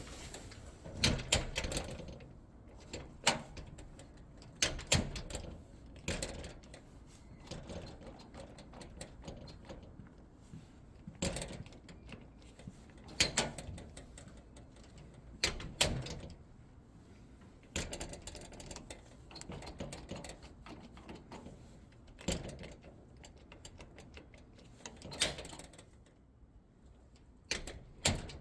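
Irregular clicks and knocks of hand work on a mechanical push-button door lock being fitted, some single and some in quick clusters.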